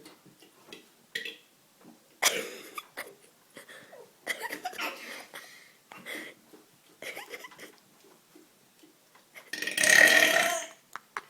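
A child burping on purpose: a few quieter short sounds, then one loud burp lasting about a second near the end.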